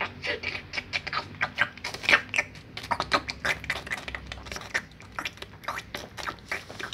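Rapid, irregular crackling and scratching right at the microphone, as the cat's fur rubs against the phone.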